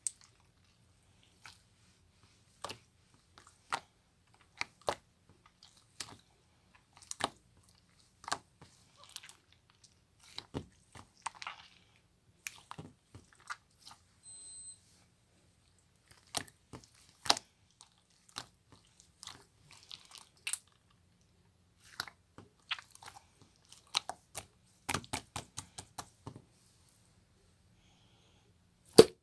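Homemade slime of canned jelly slime and PVA glue being pressed and squished by hand, giving irregular sharp wet clicks and pops.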